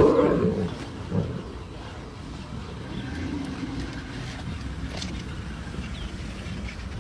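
A lion pride feeding on a warthog, with a loud snarl in the first second and a short one about a second in, then a steady low rumble.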